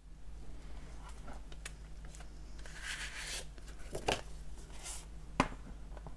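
Hands unwrapping and opening a boxed colored-pencil set: rustling and crinkling of the wrapping, with a longer crinkle about halfway through and a few sharp clicks of the case being handled.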